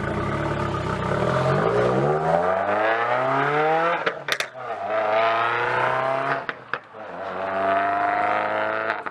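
Car engine accelerating hard through the gears. Its pitch climbs, drops with a brief break at each shift, near 4 s and near 7 s, and climbs again: three pulls in all.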